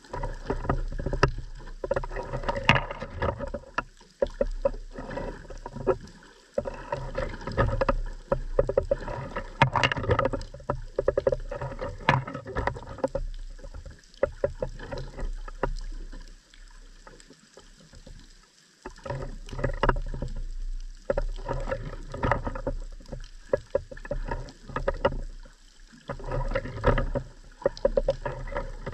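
Underwater sound picked up by a camera in its housing on the seabed: muffled water noise full of rapid crackling clicks, coming in bursts of several seconds with quieter spells between.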